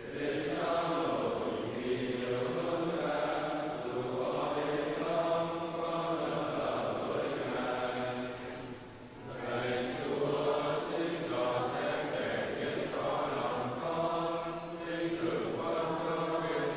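Congregation of mixed voices chanting a psalm in unison in Vietnamese, in long sung phrases with a brief pause about halfway through.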